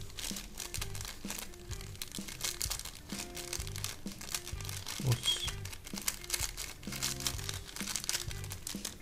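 Foil instant-noodle seasoning sachet crinkling and crackling as it is handled and crumpled, over background music.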